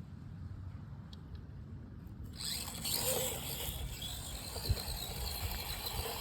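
Axial SCX24 micro RC crawler's small electric motor and gears whirring as it crawls, starting about two and a half seconds in, with a faint high whine over a lower hum.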